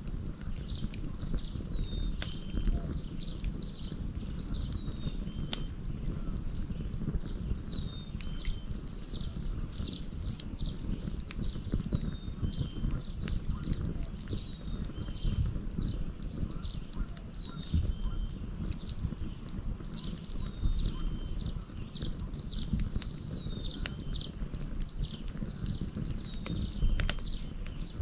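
Wood fire crackling with scattered sharp pops over a steady low rumble, while a bird calls over and over with short, high, downward notes about once a second.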